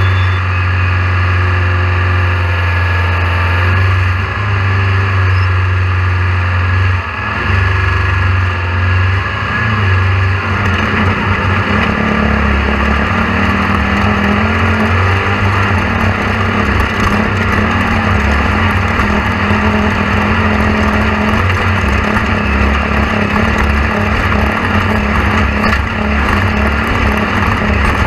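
A motor running steadily, a loud low hum that shifts up in pitch about ten seconds in.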